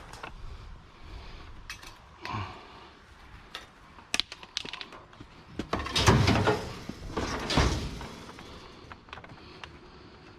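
Clatter of hard-rubbish items being handled and loaded into a vehicle: scattered light knocks and clicks, with two louder bangs and scrapes about six and seven and a half seconds in.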